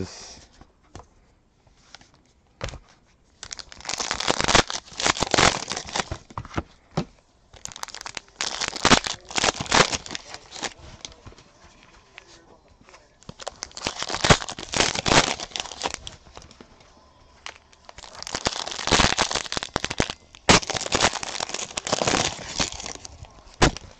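Foil trading-card pack wrappers crinkling and tearing as packs are ripped open by hand, in several bursts of a few seconds each with quieter lulls between.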